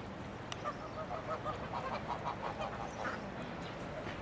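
A flock of domestic geese honking, a quick run of short calls following one another several times a second.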